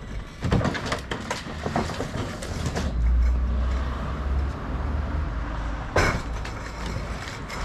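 Forklift unloading pallets of glass bottles from a truck trailer: a run of clattering and knocks, then the forklift's motor running louder for a couple of seconds as it pulls away, and a single sharp knock near the end.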